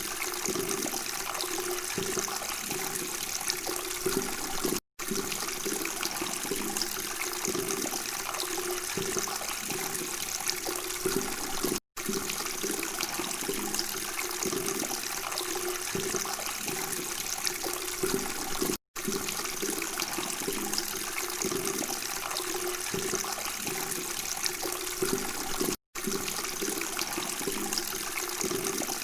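Flowing water babbling steadily, a continuous rush and gurgle that drops to silence for an instant four times, about every seven seconds.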